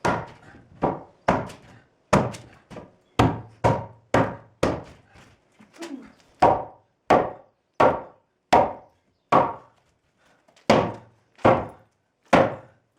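Hammer blows on wood, about twenty sharp strikes at one to two a second with short pauses between runs: a board screwed over a shed opening being knocked loose against screws that are still holding.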